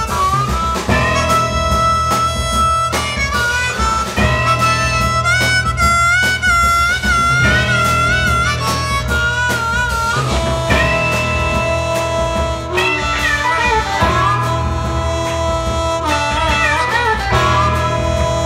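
Blues harmonica playing a solo of long held notes that waver and bend, over a steady rhythm section of bass and drums, recorded live.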